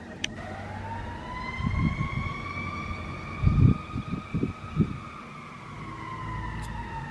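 Sentry 3V8-H outdoor warning siren sounding for a fire call. Its pitch climbs in a long rising wail just after the start, holds high through the middle, and begins to fall near the end. A few low thumps come around the middle.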